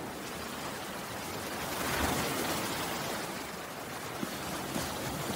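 A steady, even rushing noise with no tune or voice, swelling a little about two seconds in.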